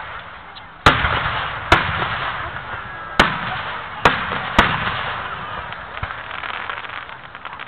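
Aerial fireworks shells bursting overhead: five sharp booms in under four seconds, each fading slowly, then a quieter stretch near the end.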